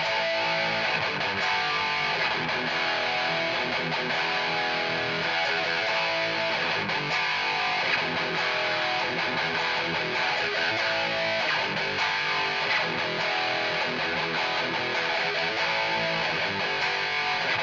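Electric guitar with an active EMG 81 bridge pickup played through a Peavey 6505 Piranha mini amp and 1x8 cabinet: a continuous high-gain metal riff, heavily distorted.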